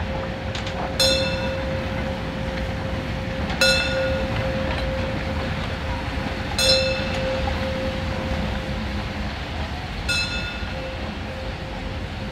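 German tender steam locomotive running slowly past, with a steady rumble and hiss. Four short, high, ringing metallic squeaks come a few seconds apart.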